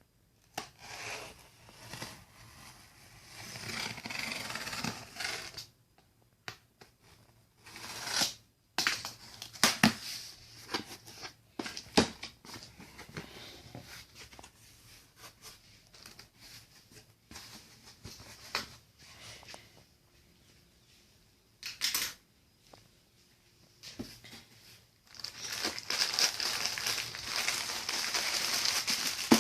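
Packaging handled during a monitor unboxing: plastic and wrapping crinkling and rustling in irregular spells, with sharp clicks and knocks, and a long spell of loud rustling near the end.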